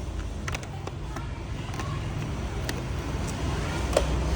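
Steady low rumble of engines and road traffic, with a scattering of small sharp clicks.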